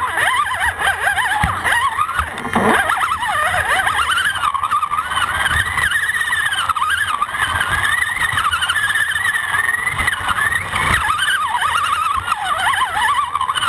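Axial AX10 RC rock crawler's electric motor and gear drivetrain whining, the pitch wavering up and down with the throttle, with occasional knocks as the chassis climbs over rocks and leaves.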